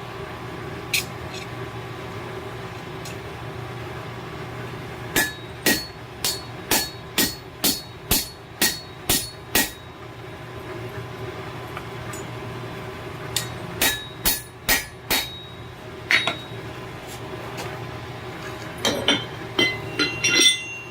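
Blacksmith's hammer striking hot steel on an anvil, each blow ringing: a run of about ten strikes at roughly two a second, then a shorter run of five, a single blow, and a few lighter taps near the end, over a steady low hum.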